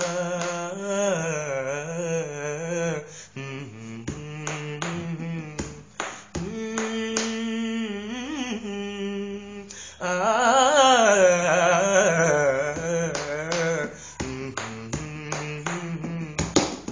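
A man singing unaccompanied without words, humming and vocalising in long held notes and wavering melodic runs. Sharp clicks fall between and under the phrases.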